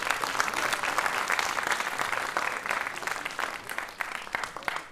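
Audience applauding: many hands clapping together, thinning out over the last second or so.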